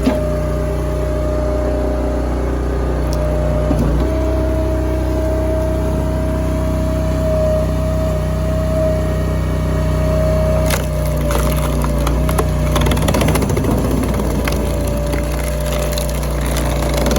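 TimberWolf log splitter's engine running steadily with a high whine, while hardwood rounds crack and splinter as they are split, most busily in the second half.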